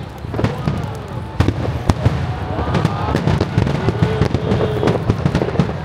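Aerial fireworks bursting in quick succession: a dense run of sharp bangs over a steady low rumble.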